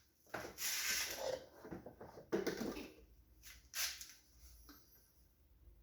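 Motor oil being poured from a jug into a funnel in the engine's oil fill hole, with a few irregular glugs and splashes that die away to near silence near the end.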